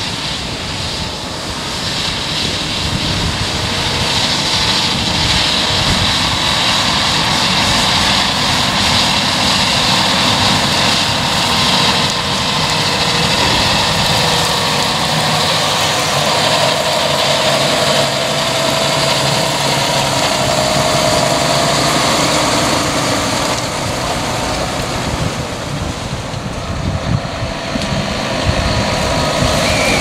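John Deere 6250R tractor's six-cylinder diesel engine running steadily under load as it pulls a plough through the soil. It grows louder over the first few seconds and again near the end as the tractor passes close by.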